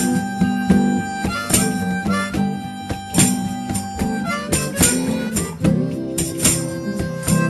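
Acoustic blues band playing an instrumental passage: long held lead notes over strummed guitar, with a steady beat of percussive strikes.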